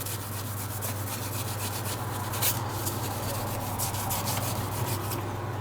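A dry cloth rubbed back and forth over the inside of a TV remote control, wiping off the isopropyl alcohol used to clean it: a steady scratchy rubbing with a few sharper swishes.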